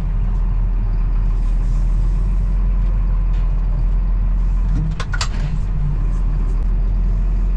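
Tractor engine running steadily with a low drone, and a couple of sharp clicks about five seconds in.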